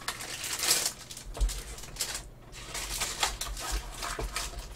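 Plastic snack wrapper crinkling and a cardboard Pepero box being handled close to the microphone: a run of rustling for the first two seconds, then many quick crackles and taps, with a few dull low bumps.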